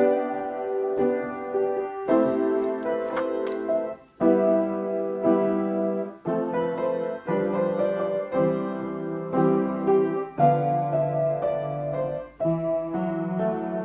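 Background piano music: a steady sequence of sustained chords changing about once a second.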